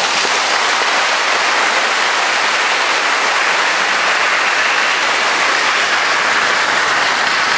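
Congregation applauding steadily, a dense unbroken clapping.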